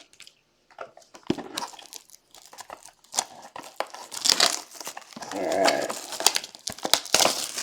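Plastic wrapping crinkling and tearing in irregular bursts, with sharp clicks from handling packaging, as a sealed trading-card box is opened.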